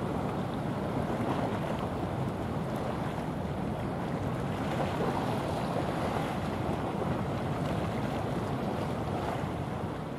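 Steady noise of wind on the microphone and sea water, with a container ship under way, with no distinct engine tone or impacts.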